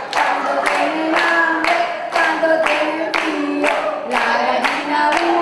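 A woman singing into a microphone with no band behind her, while hands clap in time, about two to three claps a second.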